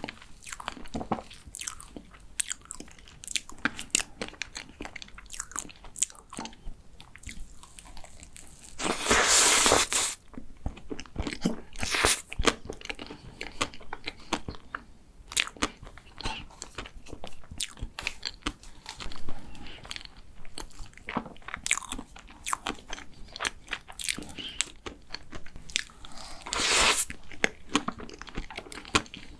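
Close-miked chewing of a chocolate macaron, with crisp bites and many small wet clicks. Two longer, louder noisy bursts come about a third of the way in and again near the end.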